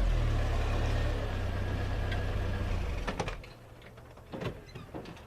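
Jeep Comanche pickup's engine running with a steady low rumble, falling away about three seconds in. A few sharp clicks and knocks follow.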